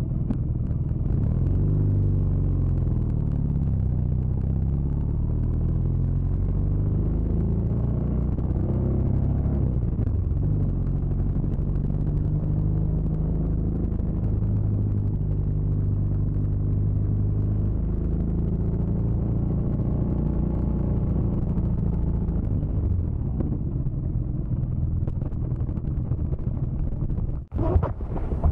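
BMW R nineT's boxer twin engine running while riding, its pitch rising and falling several times with throttle and speed, with steady wind rush. About a second before the end it breaks off into a short stretch of hissier noise.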